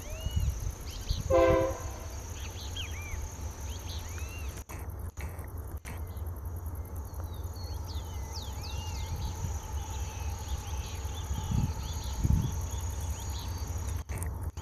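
Diesel-electric freight locomotives of an approaching loaded iron-ore train, led by a Wabtec AC44i, running with a steady low rumble. Birds chirp over it, and a short, loud pitched sound comes about a second and a half in.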